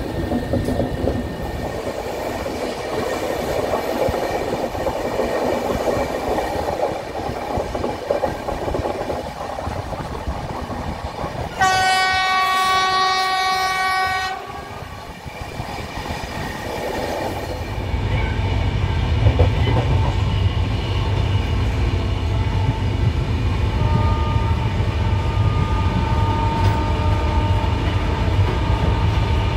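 Train running on the rails, with one long horn blast of about three seconds about twelve seconds in. From about eighteen seconds a deeper, heavier rumble takes over.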